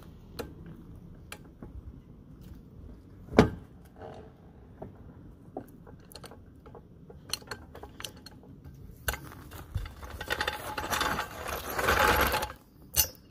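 Floor jack being let down and pulled out from under a car: scattered metal clicks and knocks, with one sharp knock about three and a half seconds in. Near the end comes a louder rattle and scrape lasting a couple of seconds as the jack is dragged out.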